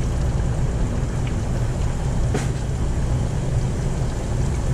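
Hot oil bubbling in an electric deep fryer over a steady low hum, with one short sharp crackle about two and a half seconds in as a battered shrimp goes into the oil.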